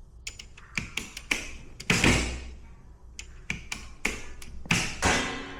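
Sharp clicks and metallic clacks of a circuit breaker being switched off and on again while a tripped breaker is being reset. Two louder clacks ring on briefly, about two seconds in and near the end.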